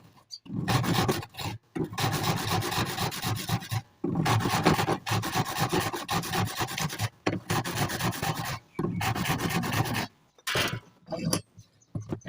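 Hand file or rasp worked back and forth in runs of rapid strokes, with short pauses between runs.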